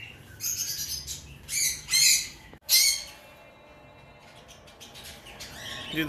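Pet lovebirds and cockatiels in their cages calling: several short, shrill chirps and squawks in the first three seconds, then only faint high calls.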